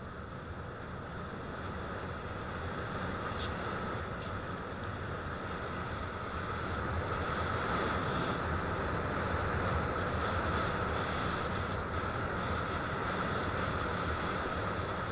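Steady whine of a model aircraft's electric motor and propellers, with wind rushing over the onboard camera's microphone; it grows a little louder about halfway through.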